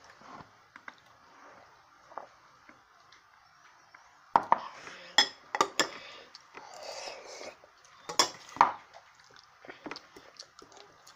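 Plastic training chopsticks clicking and knocking against a bowl while picking up food, a quick run of sharp taps starting about four seconds in after a quiet stretch.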